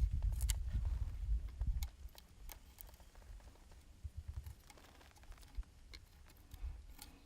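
Low rumble for about the first two seconds, then a few light clicks and knocks of handling over quiet background; no gunshot.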